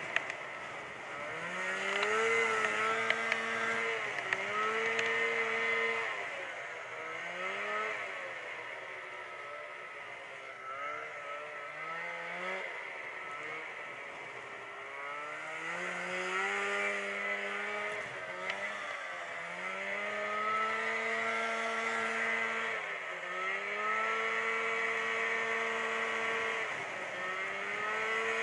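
Snowmobile engine running under way, its pitch repeatedly rising, holding and dropping again every few seconds as the throttle is opened and eased off.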